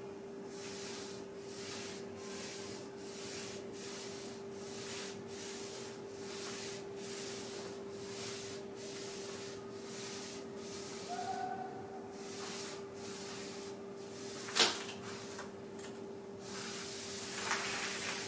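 Charcoal scratching on paper in quick, regular short strokes, about three every two seconds, over a steady hum. A sharp click comes about three-quarters of the way through, and a longer rubbing stroke near the end.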